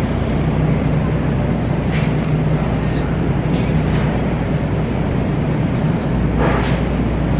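Shopping cart rolling across a store floor: a steady rumble and rattle from the wheels and frame, with a low hum underneath.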